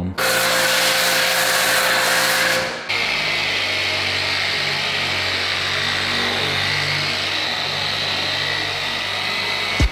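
For about the first three seconds, a loud spraying hiss with a steady hum. After a sudden cut, a dual-action polisher fitted with a 6-inch clay mitt runs steadily against foam-lubricated car paint, with a faint high whine over its motor noise.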